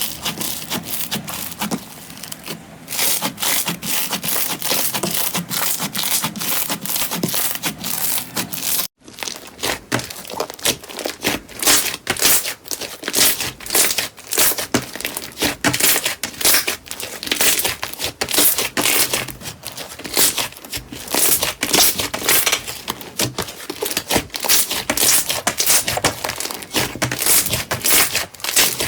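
Slime being squeezed and pressed by hand, giving dense, rapid crackling and crunching. It cuts out briefly about nine seconds in and then resumes in the same manner.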